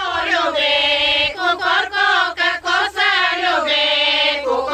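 A group of women singing a Bulgarian folk song together, long held notes broken by short pauses for breath.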